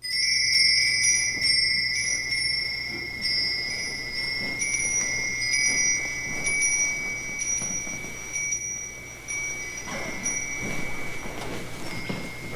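A small bell rung again and again, its high ringing tone held between strikes. The strikes thin out after about nine seconds. The ringing signals the start of Mass.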